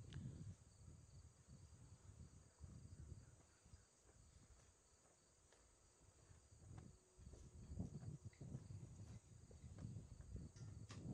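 Faint outdoor ambience: a steady high insect chirring with an uneven low rumble beneath it.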